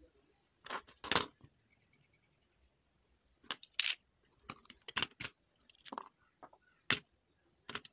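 A steady, high-pitched insect drone, with about nine sharp clicks and taps scattered irregularly through it, the loudest about a second in.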